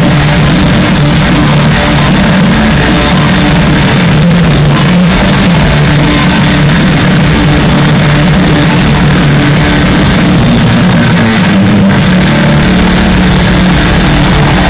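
Live heavy rock band playing electric guitars and drum kit, recorded through a phone's microphone that is overloaded, so the sound is loud and badly distorted.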